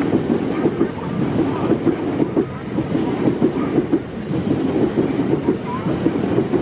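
ITX-Saemaeul electric multiple-unit train passing, its wheels clattering rapidly and steadily over the track.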